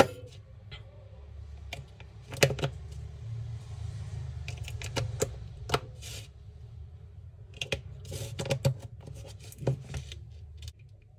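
Scattered clicks and knocks of hard plastic being handled: a four-AA battery holder with its cells picked up and moved about on a tabletop, with a low hum underneath that stops near the end.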